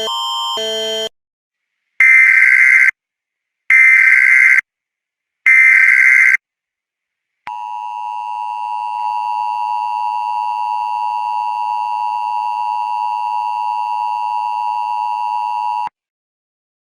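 Emergency Alert System tones: three buzzy data bursts of about a second each, the SAME header, a few seconds in, followed by the steady two-tone EAS attention signal held for about eight seconds and cutting off suddenly. Before them, a repeating alternating-tone sequence stops about a second in.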